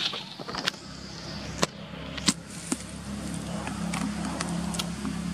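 A few sharp clicks and snaps, then a steady low engine hum that sets in about three seconds in and holds.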